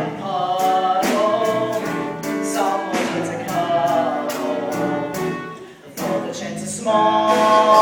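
Show tune: several voices singing together over instrumental accompaniment. The music dips briefly about six seconds in, then comes back louder near the end.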